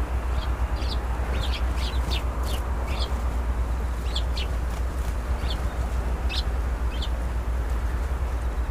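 Small birds chirping, about a dozen short, high calls scattered through, over a steady low rumble and hiss.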